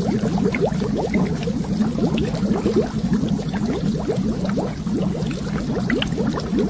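Water bubbling steadily: a dense, unbroken run of quick rising blips.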